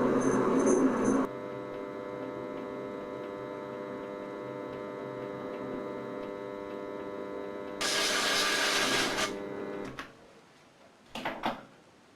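A machine hums steadily, with a louder rushing noise over it for about a second and a half near the middle; it stops about ten seconds in, and a couple of short scraping noises follow. It opens with a loud noisy stretch that ends a second or so in.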